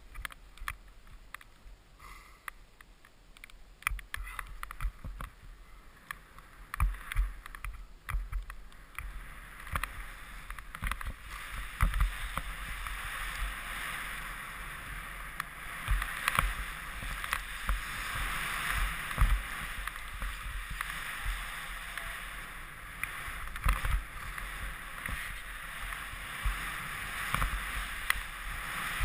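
Splitboard riding through deep powder snow: a steady snow hiss under the board that builds after about ten seconds, with frequent short low thumps.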